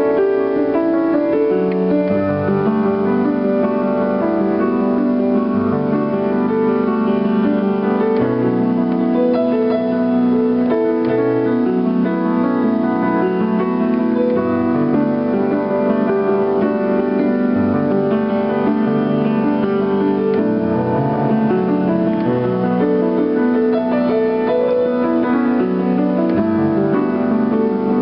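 Piano improvisation: two hands playing full sustained chords over a shifting bass line, at an even loudness throughout.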